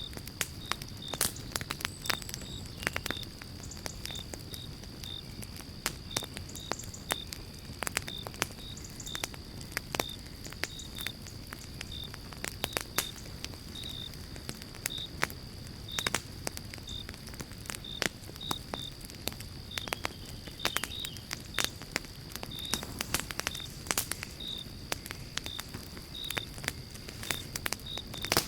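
Wood fire crackling in a fireplace: frequent sharp pops and snaps over a low, steady rumble of flame. A thin, steady high tone and short high chirps, about two a second, run underneath.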